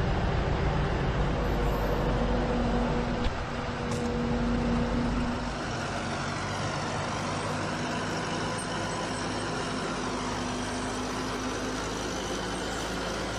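John Deere 333E compact track loader's diesel engine running steadily under work, a little softer from about five and a half seconds in.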